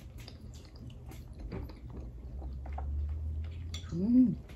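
A person chewing a mouthful of soft food with lips closed, with small wet mouth clicks, then a short hummed 'mmm' that rises and falls in pitch near the end.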